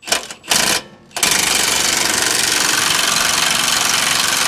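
Cordless impact gun hammering on the lower rear shock bolt, loosening it while a wrench holds the nut. It gives two short bursts, then runs steadily from about a second in.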